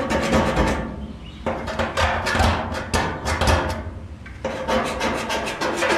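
Snap-on scriber scratching along sheet metal in quick, repeated strokes, tracing the outline of a frame rail.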